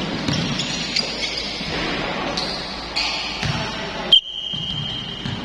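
Basketball bouncing on a concrete court with sneaker squeaks during play. About four seconds in, a loud sharp onset and a steady high-pitched tone held for over a second, as play stops.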